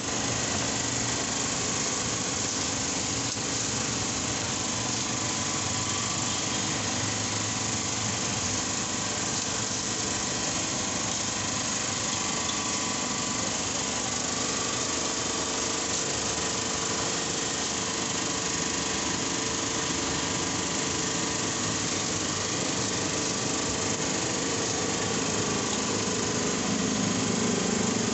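A steady mechanical drone with a hiss over it, like a small motor running, even in level with a few faint steady tones, swelling slightly near the end.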